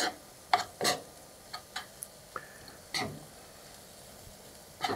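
A utensil knocking and clicking against a pan as seasoned ground beef is stirred and fried, about nine separate short knocks over a faint sizzle.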